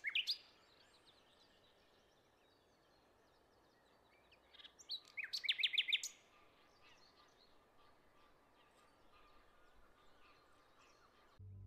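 Songbirds chirping outdoors over faint background noise: a couple of chirps at the start, then a quick run of about ten chirps around five seconds in.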